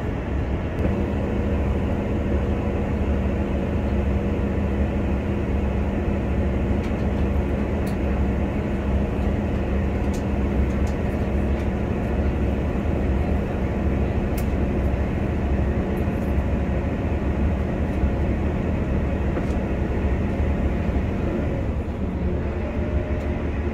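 Passenger train running at speed, heard from inside the carriage: a steady, loud rumble of wheels on the rails with a steady hum that fades out about two seconds before the end.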